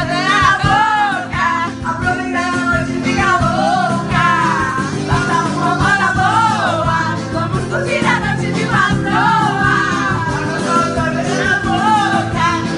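Music: a song with a singing voice over a full band with a steady beat.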